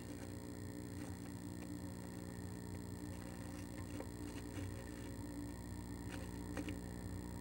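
Faint, scattered ticks and scratches from a female northern flicker shifting on the wood-chip bedding inside a wooden nest box, a few clustered about four seconds in and again about six seconds in. Under them runs a steady low hum.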